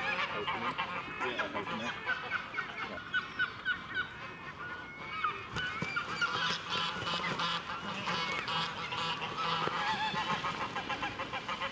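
A flock of domestic geese honking over and over, many short calls overlapping. From about halfway through, water splashing and wing flapping join in as the geese fight in the shallows.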